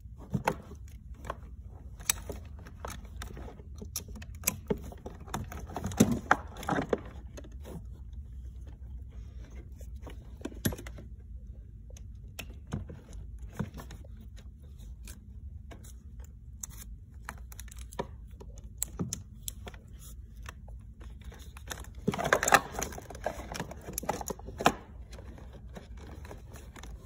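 Scattered clicks, taps and rustles of hands handling plastic wire connectors and wiring around a ride-on toy's sealed lead-acid battery, with a denser burst of rustling and clicking near the end, over a low steady hum.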